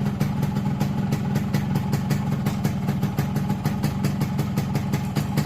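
Yamaha RX-King's single-cylinder two-stroke engine idling steadily with an even pulse, just after its final tune-up setting. It is set for a mild everyday idle rather than a heavy "ngorok" (snoring) burble.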